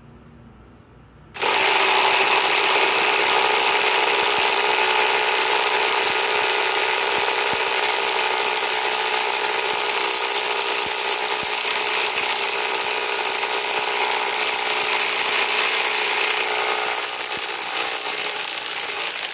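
RIDGID R8721B right-angle impact wrench hammering steadily on a very tight, rusted-on 1-1/2 inch nut on speed 3. It starts about a second in and runs without a break for some eighteen seconds, taking a long time before the nut breaks loose, then cuts off.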